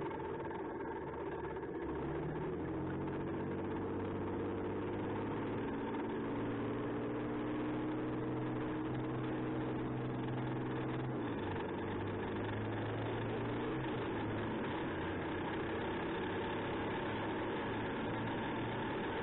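Perkins CV12 V12 diesel of a Challenger Armoured Repair and Recovery Vehicle running under way, heard from on board. The engine note climbs steadily for several seconds, drops suddenly about eleven seconds in, then runs steady.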